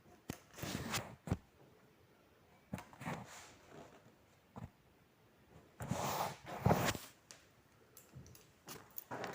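EVA foam sheet being cut into strips and handled on a table: a few short scraping, rustling strokes, the longest and loudest about six seconds in.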